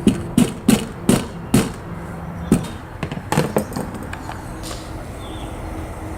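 Sharp knocks on an upside-down cake pan, about eight over the first four seconds, tapping it to loosen the baked sponge cake so it drops onto the plate.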